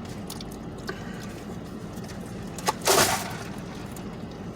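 A drink being dropped: a sharp knock just before three seconds in, then a short loud splash of liquid spilling.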